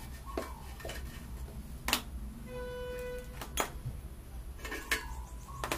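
Scattered clicks and clinks of the metal parts of an electric meat grinder's head being handled as the grinding plate is taken off the cutter, over a low steady hum. A brief steady tone sounds once, about halfway through.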